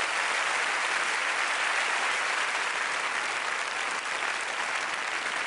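Large audience applauding steadily, easing off slightly toward the end.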